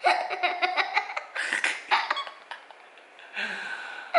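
A young boy laughing hard, a quick run of giggles that thins out toward the end.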